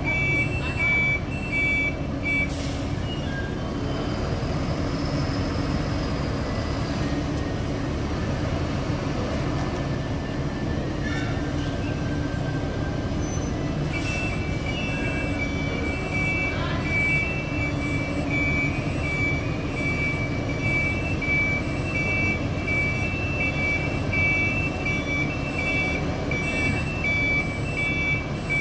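Flatbed truck's diesel engine running as it reverses, with its reversing alarm beeping in a steady repeating pattern. The beeping stops a couple of seconds in and comes back about halfway through.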